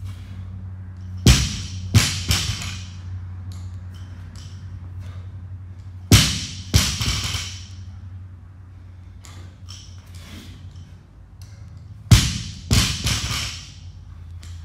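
Loaded barbell with rubber bumper plates dropped from overhead onto a rubber gym floor three times, about five seconds apart. Each drop is a heavy thud followed by a smaller bounce and a brief clatter of bar and plates. A steady low hum runs underneath.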